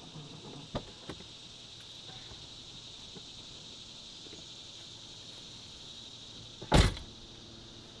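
A car door clicks open about a second in and is shut with a loud thud near the end, over a steady high insect drone.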